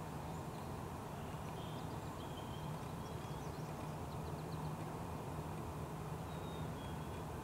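Steady low outdoor rumble, with a few faint, short high-pitched bird chirps and whistles scattered through it.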